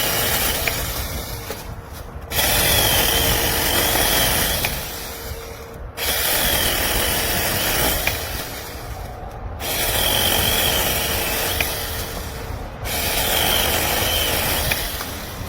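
Cordless battery-powered mini chainsaw cutting through wood in repeated passes. Each cut starts abruptly and tails off, about every three and a half seconds, over a steady motor whine.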